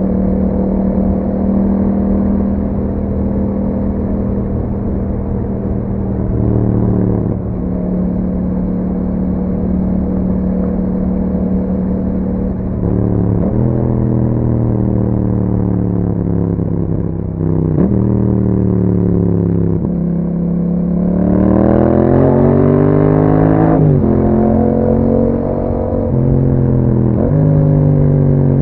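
Yamaha MT-07's parallel-twin engine through an Akrapovic exhaust while riding: a steady cruising note at first, then the pitch dropping several times as the throttle is rolled off, a strong rise in revs about two-thirds of the way through, and short steps in pitch at the gear changes.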